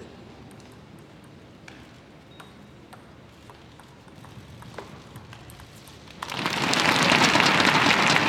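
Quiet hall background with a few faint clicks, then crowd applause breaking out suddenly about six seconds in and staying loud.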